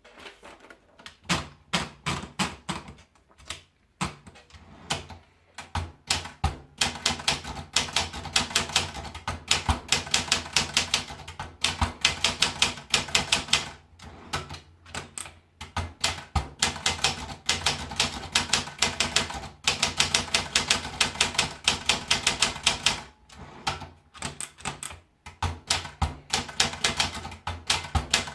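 Olympia Traveller portable manual typewriter being typed on: fast runs of key strikes broken by short pauses.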